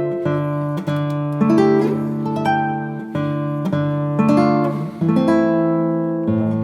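Background music: acoustic guitar playing plucked notes and strummed chords at a steady pace.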